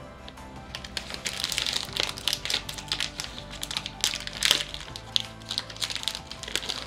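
A packaged pineapple cake's wrapper being handled and torn open: many quick sharp crackles, thickest from about a second and a half in, over steady background music.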